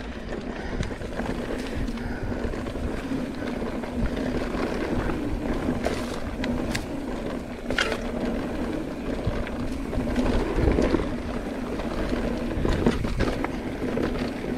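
Mountain bike riding over a dirt trail: steady tyre and wind noise, with scattered knocks and rattles from the bike over bumps, a few sharp ones about six to eight seconds in.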